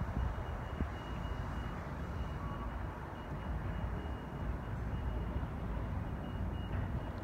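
Loaded rock hopper cars rolling slowly over curved street track: a low, steady rumble of the train, with a faint thin high tone that comes and goes.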